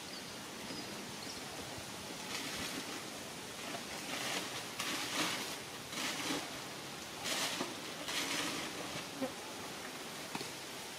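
Dry fallen leaves rustling and crunching in about six short bursts, as of steps through leaf litter, over a steady outdoor hiss.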